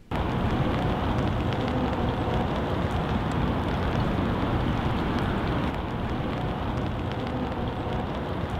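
Steady outdoor street ambience at night: an even, rain-like hiss that starts suddenly and holds level throughout.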